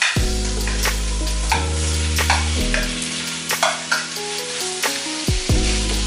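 Chicken sisig mixture sizzling as a spoon scrapes it off a plate onto a hot sizzling plate, with repeated clicks of the spoon against the plate. Low steady tones sit underneath and shift in pitch every second or two.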